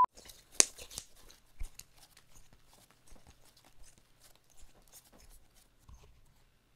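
Slime being handled and put back into its plastic tub: small sticky clicks and crackles, with one sharp click about half a second in.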